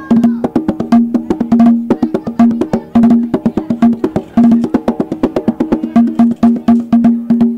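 Drum-and-percussion music: a fast, dense clacking of wooden percussion over pitched drums, with a steady ringing tone that comes and goes beneath the strikes.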